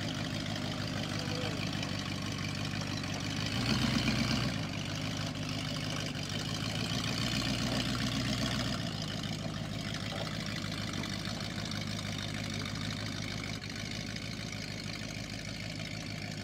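Engine of a scrap-metal horse-shaped art vehicle running steadily at low revs as it rolls slowly along. It surges louder briefly about four seconds in, and again more mildly around eight seconds in.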